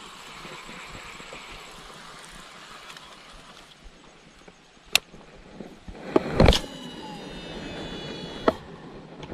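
Baitcasting fishing reel being handled: sharp clicks about five seconds in, a louder clatter around six and a half seconds, then a faint high whine that slowly falls in pitch.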